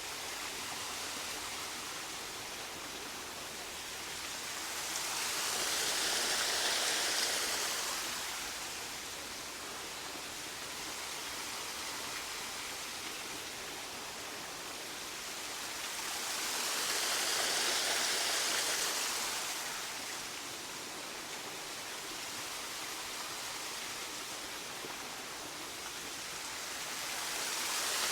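Waterfall rushing steadily, an even hiss of falling water that swells and eases about every eleven seconds.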